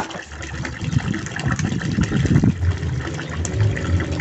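Water running from a pipe and splashing into a plastic basin, with a loud, uneven low rumble over it that starts a moment in.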